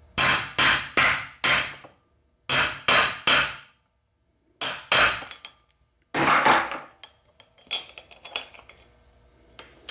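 Hammer blows on a seal driver, tapping a new front seal into a T5 transmission's front bearing retainer: about ten ringing metallic strikes in short groups of four, three, two and one, then a few lighter taps near the end.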